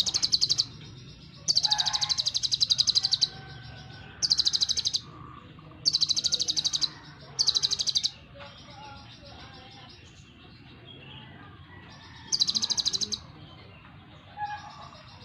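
Kolibri ninja sunbird (konin) singing: high, rapid trilled bursts of about a second each, repeated six times. There is a longer pause of a few seconds in the middle.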